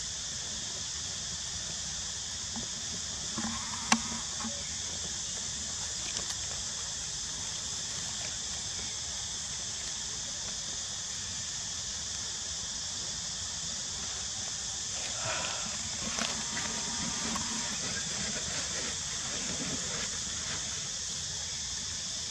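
Steady high-pitched drone of a chorus of insects, unbroken and even, with a single sharp click about four seconds in.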